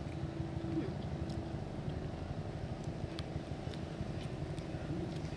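Steady low rumble and hum of outdoor background noise, with a faint steady tone in the first couple of seconds and a few scattered soft clicks.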